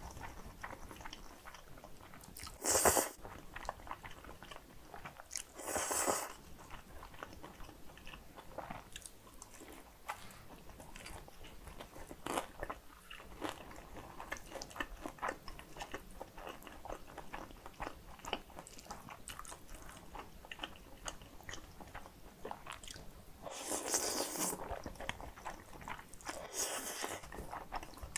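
Close-miked eating of kimchi bibim guksu: noodles slurped in several short noisy bursts, about three and six seconds in and twice near the end, with soft chewing and crunching of the kimchi-dressed noodles in between.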